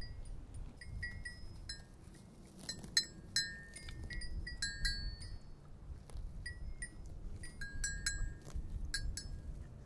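Small livestock bells tinkling irregularly, several bells of different pitch, clinking now and then in quick clusters, over a low rumble.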